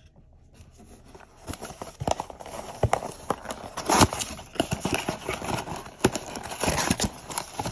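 Cardboard 2024 Bowman Baseball hobby box being opened by hand, its flaps pulled apart with a quick, irregular run of clicks, knocks and rustling that starts about a second and a half in.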